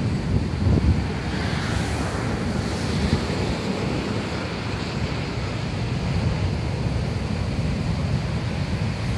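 Heavy surf: large waves breaking and foam washing up a sand beach, a steady roar with hissing spray. Wind buffets the microphone, with gusty rumble, strongest in the first second.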